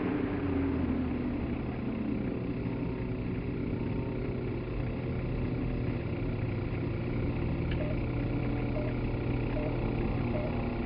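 Engine of a large radio-controlled aerobatic biplane running on the ground, its pitch dropping in the first second, then idling steadily.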